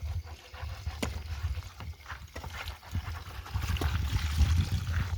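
Wind buffeting the microphone: an uneven low rumble that grows stronger about three and a half seconds in, with a few small clicks and knocks over it.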